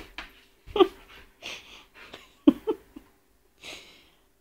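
A small poodle making a run of short, separate huffs and sniffs, some with a brief voiced edge, the last after a short pause near the end.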